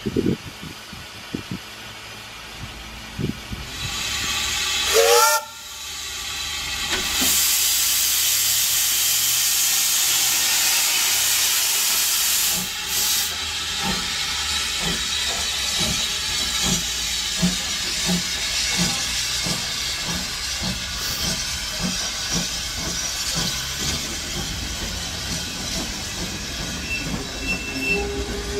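W.G. Bagnall 0-4-0 saddle tank steam locomotive: a short whistle blast rising in pitch about five seconds in, then loud steam hiss that carries on to the end. From about halfway through there is a regular beat of roughly one and a half a second under the hiss.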